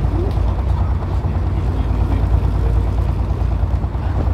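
Vintage bus driving along at a steady speed, its engine running with an even, low sound.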